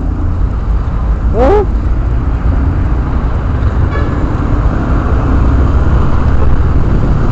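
Motorcycle in city traffic heard through a helmet-mounted camera: a steady low engine and wind rumble on the microphone. About one and a half seconds in there is a brief rising-then-falling tone.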